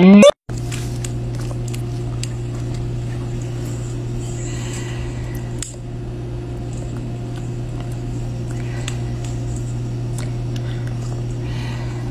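A woman's brief loud exclamation at the very start, then a steady low hum, over which come faint soft wet pats and squishes of a hand pressing and handling raw chicken breast on a wooden board.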